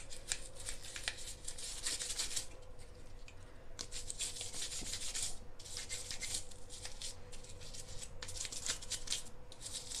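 Toothbrush scrubbing the wet plastic insert of a washing machine's detergent drawer in quick back-and-forth strokes, with a few brief pauses, over a faint steady hum.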